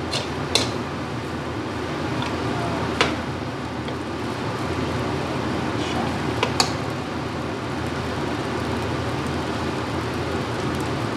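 A metal spatula clinking a few times against a steel wok as fried rice is stirred, over a steady rushing noise.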